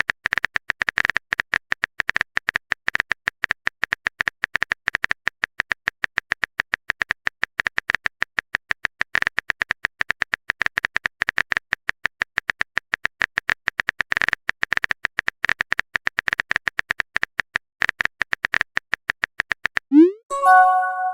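Phone keyboard typing sound effect: rapid, even clicks, many a second, with a few brief pauses. Near the end comes a message notification sound, a quick rising swoop followed by a short chime.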